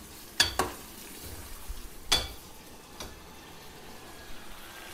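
A steel ladle clinks against the side of a steel pot while chopped onions and tomatoes fry in oil with a low, steady sizzle. There are two quick clinks near the start and another about two seconds in.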